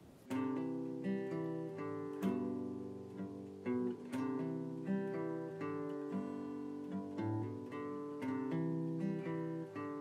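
Closing background music: an acoustic guitar strumming and picking chords, each attack ringing on into the next.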